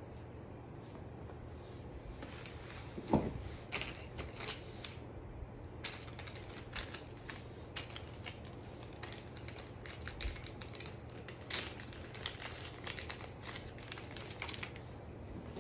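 Small clicks, ticks and rattles of dog-wheelchair parts and their packaging being handled during assembly, with one louder thump about three seconds in.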